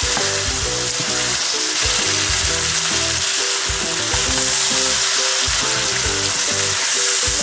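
Mutton pieces with onion, tomato and spices sizzling in a hot pan while being stirred with a wooden spoon, with a steady frying hiss throughout. Background music with held notes plays underneath.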